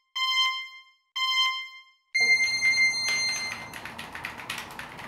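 Electronic countdown timer beeping: two short beeps a second apart, then a longer, higher beep about two seconds in that signals the start. Rapid clicking of computer keyboard keys being typed follows.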